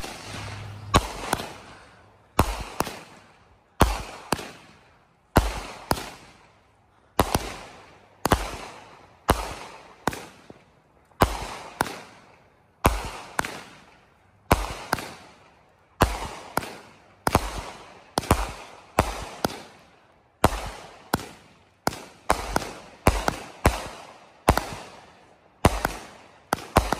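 Consumer multi-shot aerial firework cake firing shot after shot, about one to two sharp bangs a second starting about a second in, each fading away in an echo.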